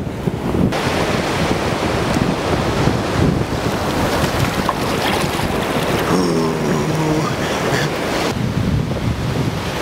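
Wind buffeting the microphone over the wash of breaking surf, a steady loud rush. About six seconds in, a short call of about a second rises briefly above it.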